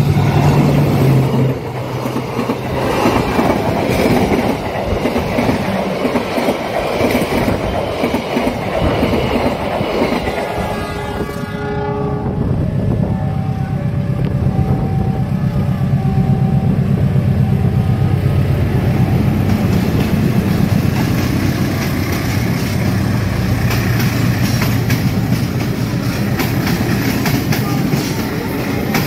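A KAI CC 206 diesel-electric locomotive hauling a passenger train passes at speed with a deep engine hum and rumble. Its horn sounds briefly about ten seconds in, and a level-crossing warning signal dings repeatedly for a few seconds after. The carriages then roll past, clattering over the rail joints.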